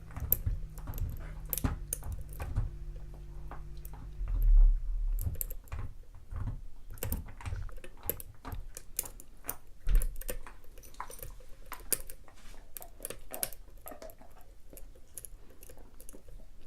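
Lock pick and tension wrench working the pins of a custom pin-tumbler challenge lock: a continuous run of small, quick metallic clicks and scrapes as pins are lifted and set. Dull bumps about four and a half seconds in and again near ten seconds stand out.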